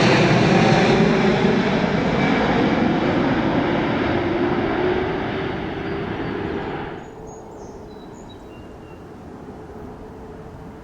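Jet airliner's engines, loud and gradually fading as the aircraft passes, then dropping away abruptly about seven seconds in to a quieter steady airport background.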